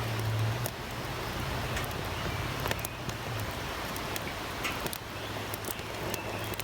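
Campfire of pine cones and pine needles burning, with scattered sharp crackles and pops over a steady rushing noise. A steady low hum sits underneath, fading out for a couple of seconds in the middle.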